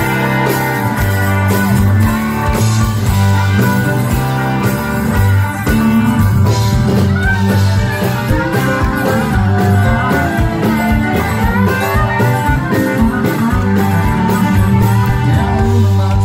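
Live country band playing an instrumental break, with acoustic and electric guitars, fiddle, keyboard and drums over a steady beat, and no singing.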